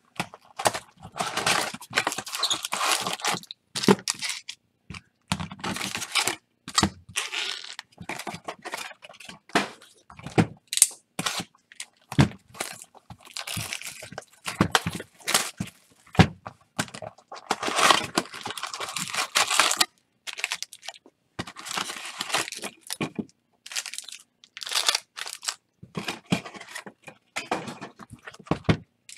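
2018 Topps Chrome baseball hobby boxes being torn open by hand and the wrapped card packs pulled out and stacked: irregular bursts of tearing and crinkling with sharp taps and clicks.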